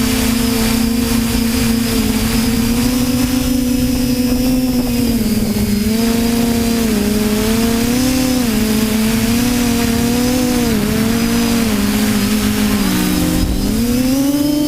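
TBS Discovery quadcopter's electric motors and propellers whining steadily, the pitch wavering up and down as the throttle changes, with the motors running at slightly different speeds in the second half.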